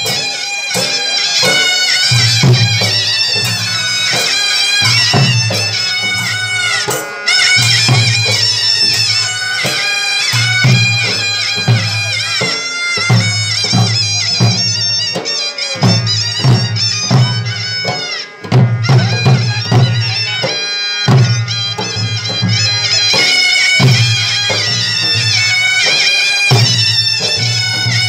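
Village folk band music: a shrill reed pipe playing a wavering, ornamented melody over a steady beat of dhol drums struck with sticks.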